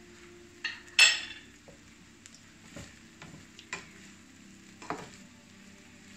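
A spoon stirring and scraping shrimp fried rice in a frying pan, with several sharp knocks of the utensil against the pan, the loudest about a second in, over a low frying sizzle.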